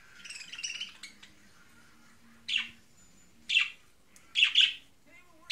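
Budgerigar calling: a soft twittering chatter in the first second, then short sharp chirps about once a second, the last a quick pair.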